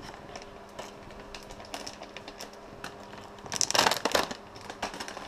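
Canada lynx sniffing and licking at close range: soft clicks and rustling, with a denser burst of crackling clicks about three and a half seconds in.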